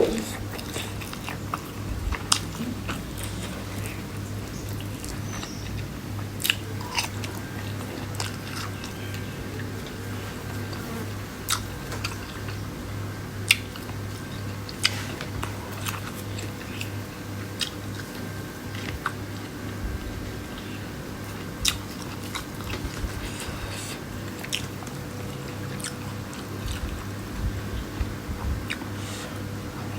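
A person chewing and biting food close to the microphone, with soft crunches and scattered sharp clicks, over a steady low hum.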